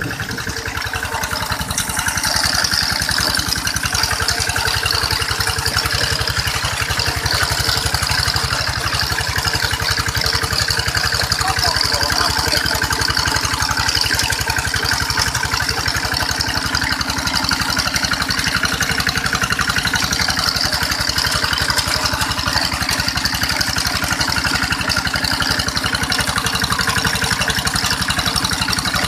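Hand tractor's engine running steadily under load while its cage wheels churn through flooded paddy mud, a little louder from about two seconds in.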